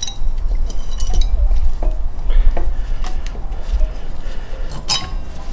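Scattered metallic clinks and knocks over a low rumble of handling, as the cast cylinder of a Suzuki DR200 single-cylinder engine is worked loose from the crankcase and lifted off its studs. The loudest knock comes near the end.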